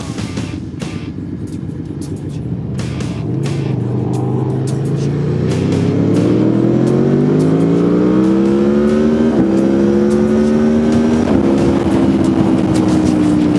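Aprilia motorcycle engine, heard from the rider's own bike, accelerating hard. It runs steadily at first, then climbs in pitch from about four seconds in, drops briefly on an upshift, climbs again, shifts once more, then holds a high note at highway speed.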